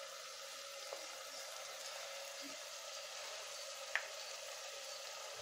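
Onion-tomato masala frying in a pressure cooker with a faint, steady sizzle, and a light click of the steel stirring spoon about four seconds in.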